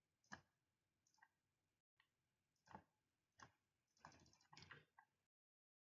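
Faint computer mouse clicks, single and scattered, with a quick little run of clicks about four and a half seconds in, as keys on an on-screen calculator are clicked.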